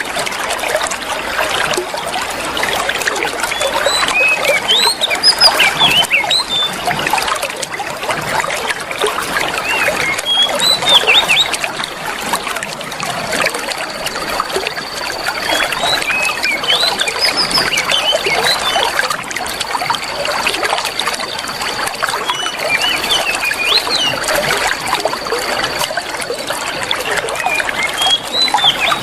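Running water trickling steadily, with small birds giving repeated short chirps and whistles over it. A thin, steady high whistle comes in about halfway through and runs on, with short breaks, until near the end.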